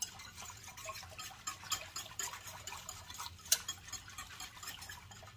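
A wire whisk stirring thickened chicken broth in a stainless steel stockpot, its wires ticking irregularly against the pot, with one sharper clink about three and a half seconds in.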